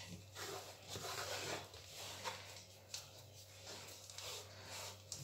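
A wooden spatula scraping and stirring peanuts in crumbly sugar around a nonstick frying pan, a gritty scraping that comes in repeated strokes.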